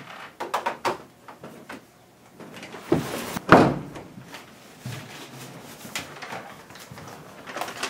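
A few clicks and clatters of a desk phone handset being set down in its cradle, then a door thudding shut about three and a half seconds in, the loudest sound. Paper sheets rustle and flap after it.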